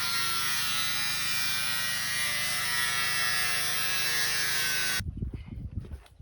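A small electric motor running steadily at constant speed with a high buzz. It cuts off abruptly about five seconds in, and a low, uneven rumble replaces it.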